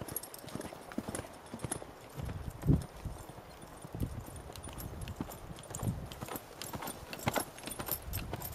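Hoofbeats of a ridden reining horse moving over a sand arena, a run of soft, irregular thuds with one louder thump a little under three seconds in.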